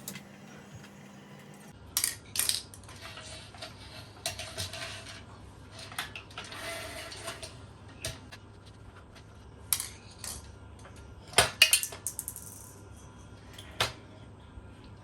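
Hard metal parts clinking and knocking together, with short stretches of scraping and sliding in between, as the pieces are handled. The loudest cluster of knocks comes about eleven seconds in.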